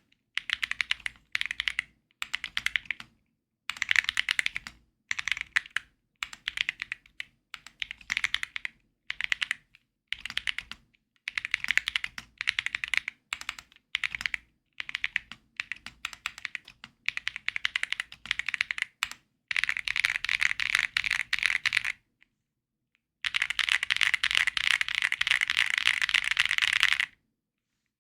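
Keysme Lunar 01 mechanical keyboard with Gateron Weightlessness switches being typed on: short bursts of rapid keystrokes with brief pauses between them, giving way to longer continuous typing about two-thirds of the way in, broken by one short pause.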